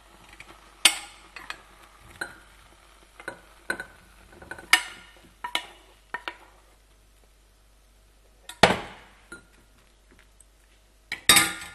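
Metal spoon clinking and scraping against a cooking pot and a china bowl while softened cooked apple pieces are spooned across, about a dozen separate knocks with short pauses between. The loudest clanks come about nine seconds in and near the end.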